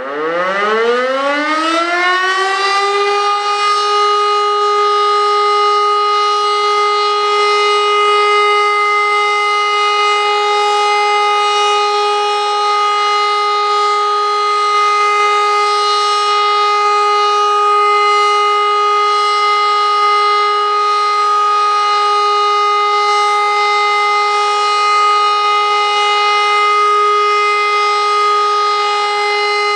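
E57 electric motor-driven civil-defence siren starting up, its pitch rising over about three seconds and then holding one steady tone: the continuous all-clear (Entwarnung) signal.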